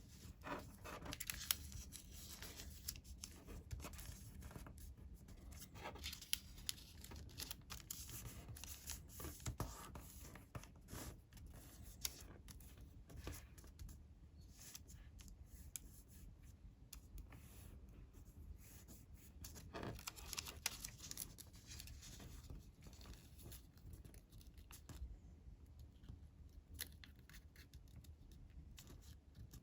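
Sheet of colored origami paper being folded and creased by hand: faint, intermittent rustles and crisp scrapes as folds are pressed down, busiest about a second in, around six seconds in and around twenty seconds in.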